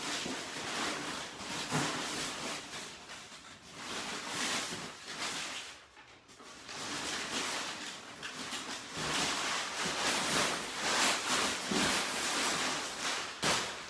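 Cardboard box being opened by hand and packing material rustled and crinkled, in uneven bursts with a short lull about six seconds in.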